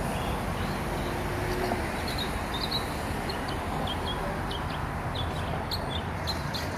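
Small birds chirping in short high notes, coming thick and fast from about a second and a half in, over a steady background hum.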